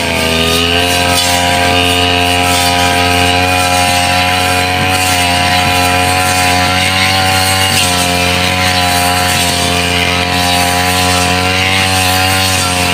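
Brush cutter engine running at high speed while cutting tall grass, its pitch dipping briefly under load right at the start and again about eight seconds in.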